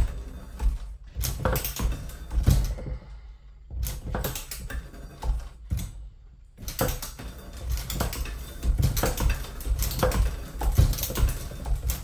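Cook's dual-tooth cat claw bandsaw blade setter worked fast by hand: a quick run of metallic clicks and clacks as the lever cycles the cams, the head clamps and the anvils bend the teeth over, the blade advanced between strokes. It stops briefly twice, about three seconds in and about six seconds in.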